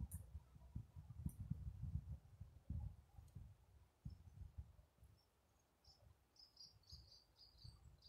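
Faint outdoor ambience: irregular low rumbling on the microphone, and about six seconds in a quick run of short, high chirps.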